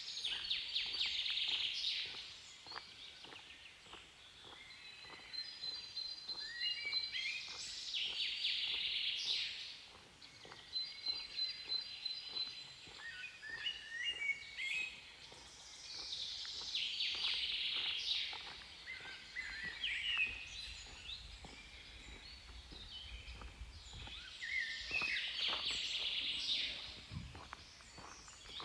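Wild birds singing in a forest, the same chirping phrase with quick pitch slides coming back about every eight seconds, with a thin high trill between the phrases.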